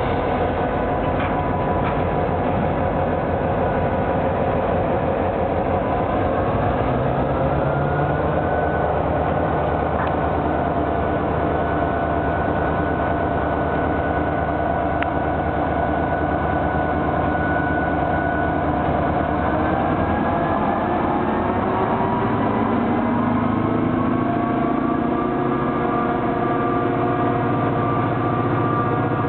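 EMD GP38-series diesel locomotive engines running, their note stepping up in pitch about six seconds in and rising again from about twenty seconds in as the throttle is notched up.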